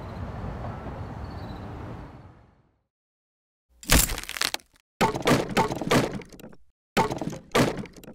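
Steady outdoor background noise fades out over the first two and a half seconds. After a short silence comes a wooden crate breaking apart: three loud bursts of cracking and splintering, at about four seconds, from five to six and a half, and from seven to eight.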